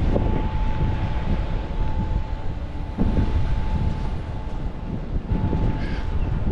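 Wind rumbling on the microphone outdoors, with a steady hum over it.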